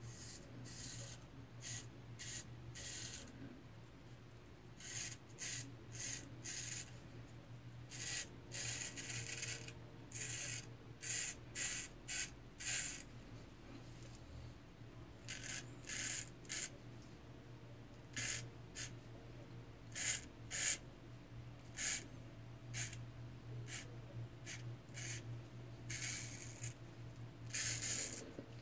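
J.A. Henckels straight razor scraping through lathered beard stubble in short strokes, coming in quick runs of several strokes with pauses between. A steady low hum sits underneath.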